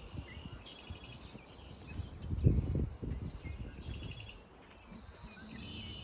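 Small birds chirping in short trilled bursts, with a brief low rumble about two and a half seconds in that is the loudest sound.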